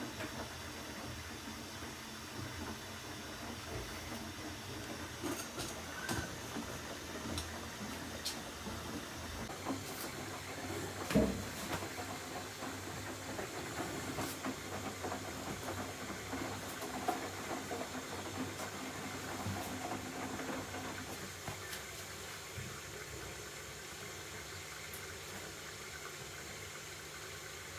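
Hisense washing machine running a wash cycle: a steady watery hiss and churn, with a few light clicks and one louder knock about eleven seconds in.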